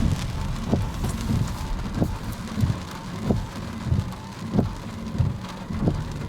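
Footsteps of someone walking at a steady pace, about three steps every two seconds, over a steady rushing noise.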